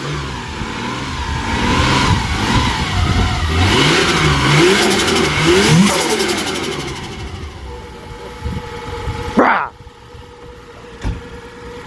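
Turbocharged Holden VL Commodore engine being revved over and over, its pitch rising and falling with each blip, then dropping back toward a steadier idle after a short sharp rising sound near the end.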